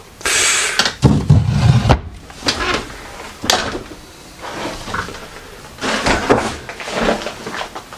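Plastic clamshell container scraping and knocking as it is set back on a wooden cupboard shelf, with heavier bumps about a second in. Then a string of uneven knocks and clicks from footsteps and handling in a cluttered kitchen.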